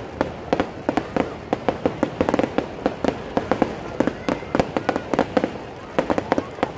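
Fireworks display: aerial shells and firecrackers going off in a dense, irregular run of sharp bangs and pops, several a second.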